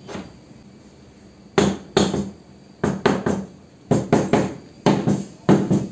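Rubber mallet knocking the metal base of a Modern M608 table saw, about a dozen sharp blows in quick pairs and clusters, starting about a second and a half in. The saw is being tapped into place so it sits flat on the workbench.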